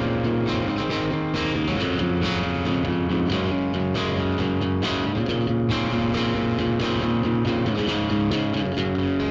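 Telecaster-style electric guitar strumming chords in a steady rhythm, the chord changing about every three seconds.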